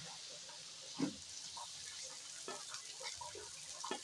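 Garlic sizzling in hot oil in a wok as chopped greens are pushed in off a cutting board. A metal spatula knocks and scrapes against the wok a few times.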